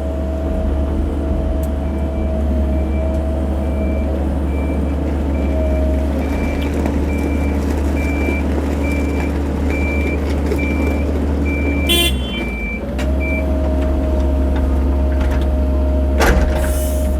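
Cat 308 mini excavator's diesel engine running with a steady hydraulic whine while it digs and loads dirt. A back-up alarm beeps about twice a second from about two seconds in until past the middle, and a sharp clunk sounds partway through.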